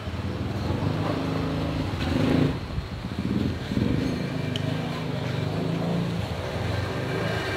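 Motor vehicle engines running steadily as traffic passes, their low drone drifting slowly in pitch, with a brief louder rush about two seconds in.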